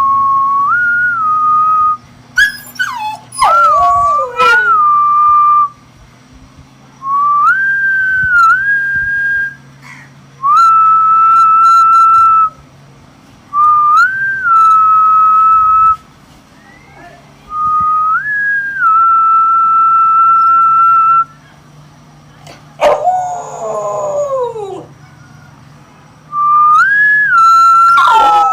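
A whistle sounding about seven times, each a quick rising note then held steady for two to four seconds. A Rottweiler answers with falling howls three times: after the first whistle, once in a gap between whistles, and over the last whistle.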